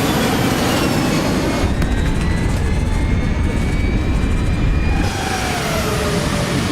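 Jet airliner engines running loud, with whining tones that slide down and up in pitch and a rushing noise.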